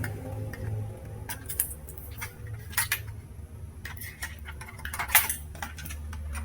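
Scattered clicks and light clattering of small hard plastic and metal parts as a laptop is taken apart by hand, with a few sharper knocks, over a faint steady low hum.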